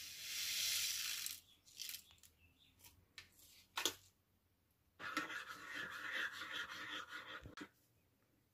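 A metal spoon stirring a drink in a ceramic mug, clinking quickly and evenly against the sides for about three seconds near the end. Before it, a stick sachet is emptied into the mug with a hissing pour, followed by a few sharp clicks.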